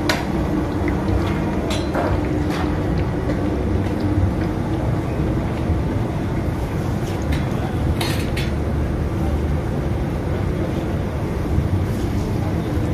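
Steady low roar of a large deep-frying station, with a few sharp metal clinks of a slotted skimmer and perforated trays, the loudest pair about eight seconds in.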